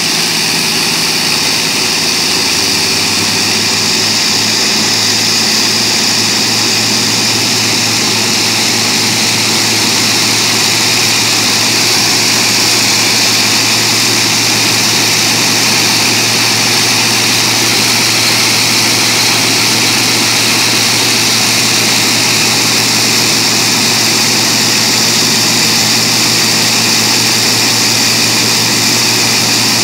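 Several Rolls-Royce Merlin V12 aero engines on ground test stands running together with their propellers turning: a loud, steady engine sound whose low note rises slightly in the first few seconds and then holds.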